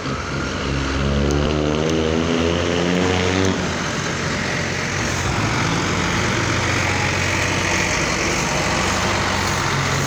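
Motorcycle engine running. It revs up over the first few seconds, then settles into a steady run.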